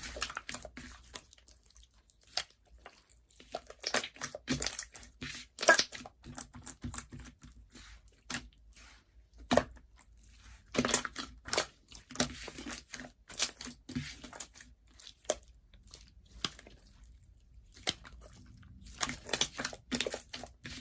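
Slime being squished and pressed, making irregular clusters of sticky crackles and pops with short quiet gaps between them.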